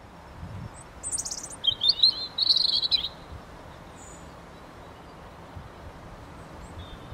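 European robin singing a short run of high, warbling phrases from about one to three seconds in, over a steady background hiss.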